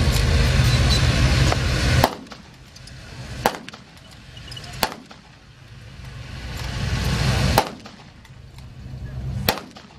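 Half-track engine running for about two seconds, then a series of about five sharp rifle shots spaced one to three seconds apart. The shots are from a Kar 98 bolt-action rifle firing blanks, with a softer vehicle sound rising and falling between them.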